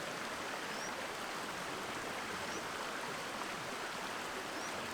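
Stream water flowing steadily, an even rushing noise with no breaks. Two faint, short high chirps come through, about a second in and near the end.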